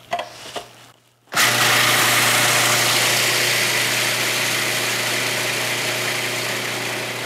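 Food processor motor switching on about a second in and running loud and steady, blending soaked sunflower seeds and sautéed mushrooms into a thick pâté paste.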